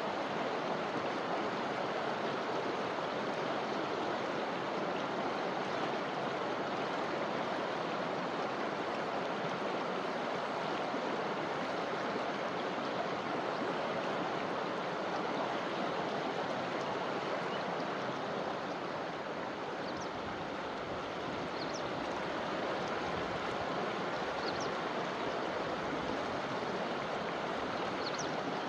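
Forest river flowing with a steady, even rush of water. A few faint short high chirps come in over the last third.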